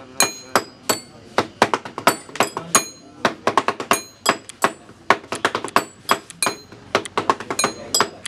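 Hands drumming on a table like a tabla: sharp knocks, several a second in quick uneven runs, each with a short high ring.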